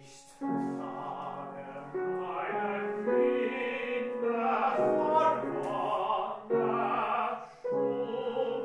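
Operatic singing: a classically trained voice sings several held notes in phrases, with short breaks for breath between them.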